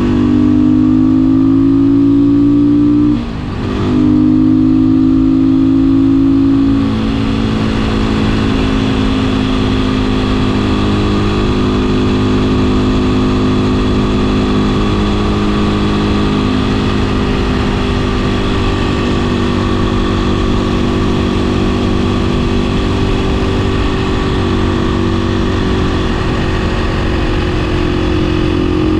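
2016 Beta 500 RS supermoto's single-cylinder four-stroke engine under way. It pulls, breaks off briefly for a gear change about three seconds in, eases off near seven seconds, then holds a steady cruise.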